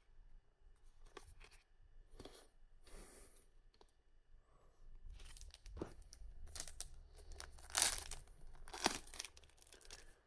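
A trading-card booster pack being torn open and its wrapper crinkled: a series of short rips and crackles, the loudest two about eight and nine seconds in.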